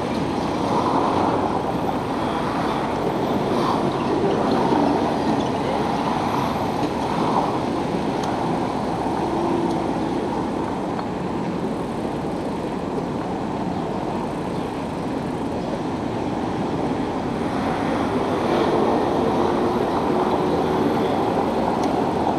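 Steady rumbling noise of a bicycle ride along a paved bike lane: wind on the camera's microphone and tyre noise on the paving, with street traffic alongside.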